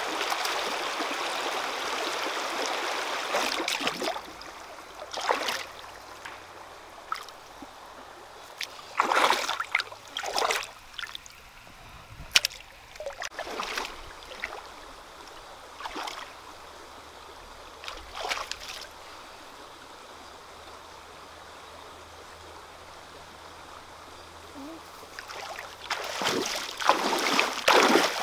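Shallow rocky stream flowing steadily, then quieter with scattered splashes and sloshes as someone moves about in the water. Near the end comes a run of loud splashing from feet wading through the shallows.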